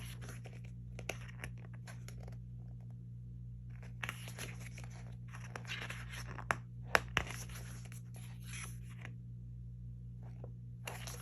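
Photo book pages being turned and handled, paper rustling and sliding in several short spells, with two sharp taps a little past the middle, over a steady low hum.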